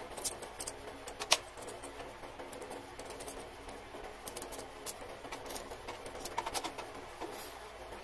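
Small stainless steel latch parts clicking and clinking as they are handled and fitted together on a metal bench: irregular light metallic taps, with one sharper knock about a second in.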